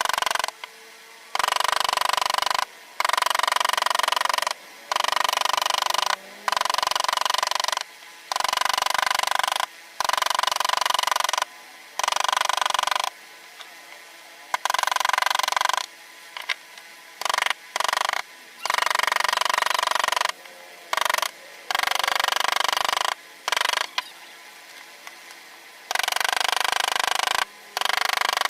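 A small high-speed power tool used for wood carving whines steadily in repeated bursts of one to two seconds, starting and cutting off sharply, about a dozen times.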